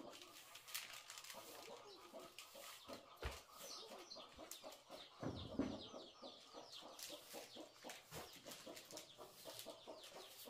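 Birds chirping over and over in short, quickly falling chirps, with scattered clicks and two soft thumps about three and five and a half seconds in.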